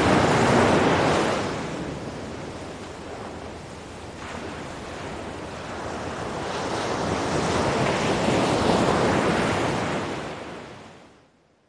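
Small sea waves washing onto a sandy beach: a surge at the start, a quieter stretch, then another wash building to a peak and fading away near the end.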